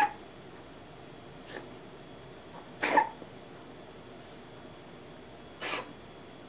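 A domestic cat giving short, explosive sneeze-like coughs, one every couple of seconds, the loudest about three seconds in. A vet took it for a cough close to a sneeze.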